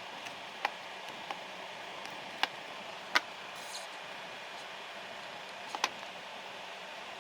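Steady hiss with about six short, sharp clicks scattered through it, the loudest a little past three seconds in and a close pair near six seconds.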